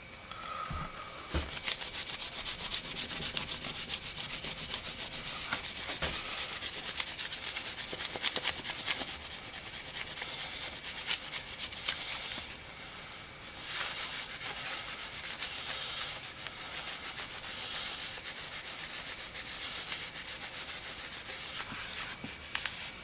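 Hand rubbing and buffing of wax on a wooden screwdriver handle: a continuous scratchy rubbing that pauses briefly a little past halfway, then carries on.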